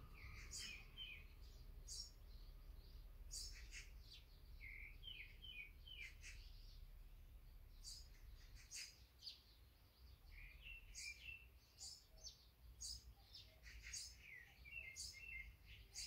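Faint chirping of small songbirds: short high calls about once a second, with several runs of quicker, lower notes.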